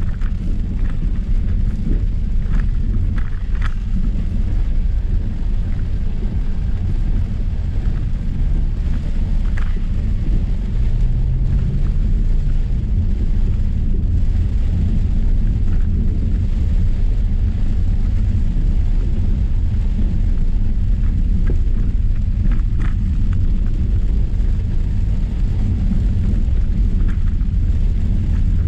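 Range Rover Sport (L494) driving along a wet dirt track, heard from inside the cabin: a steady low rumble of tyres and engine, with a few light ticks now and then.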